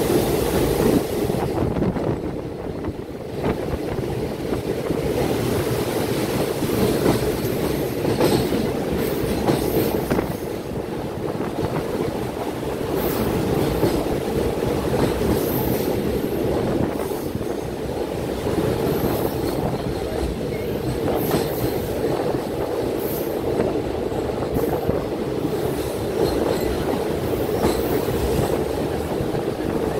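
Train running on the rails, heard from aboard the moving train: a steady rumble of wheels on track with scattered clicks from rail joints.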